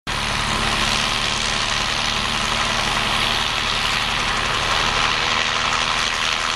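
Loud, steady engine noise: a constant low hum with a dense hiss above it, holding level throughout.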